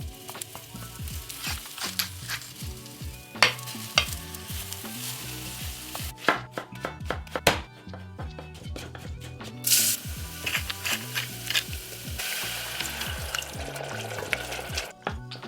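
Food sizzling as it fries in a pan, with frequent sharp clicks and knocks of a utensil being stirred and worked in it, and a brief loud burst of hiss about ten seconds in.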